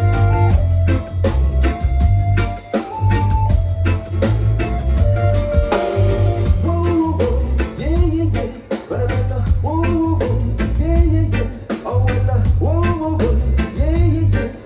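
Live rock band of bass, drums, electric guitar and keyboard playing a song with a steady beat and a heavy bass line. A cymbal crash comes about six seconds in, and a singer's voice carries the melody from about seven seconds on.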